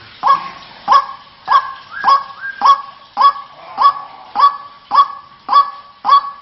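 White-breasted waterhen (ruak-ruak) calling: one harsh note repeated steadily, a little under twice a second, each note starting sharply and fading quickly.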